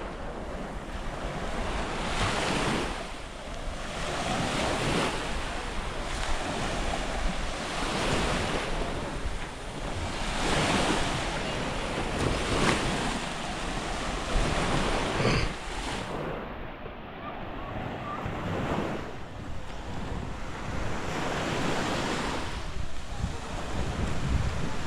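Small waves washing onto a sandy beach, swelling every two to three seconds, with wind buffeting the microphone.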